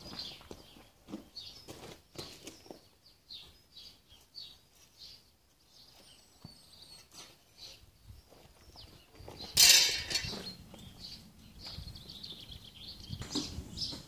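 Small birds chirping repeatedly in the background, with faint knocks and clinks of work. About two-thirds of the way through there is one loud, harsh crash lasting about half a second.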